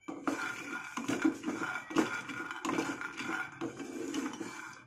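Raw peanuts being stirred with a wooden spatula in a dry nonstick frying pan, rattling and scraping against the pan in quick, irregular strokes as they roast.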